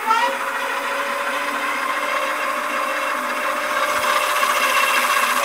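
750 W rear hub motor of an e-bike spinning the raised rear wheel under full twist throttle on pedal assist level 5, its top-speed setting. A steady electric motor whine climbs quickly at the start and then holds level over a broad whirring of the spinning fat-tyred wheel and chain.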